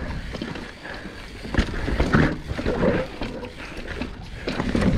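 Mountain bike working through a loose, rocky technical section: tyres scrabbling on loose dirt and rock, the bike rattling, with a sharp knock about a second and a half in. The rider breathes hard and grunts with effort.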